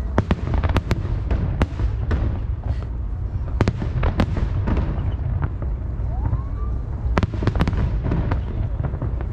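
Aerial firework shells bursting in quick succession: a run of sharp bangs and crackles, bunched near the start, around four seconds in and again around seven to eight seconds in, over a continuous low rumble.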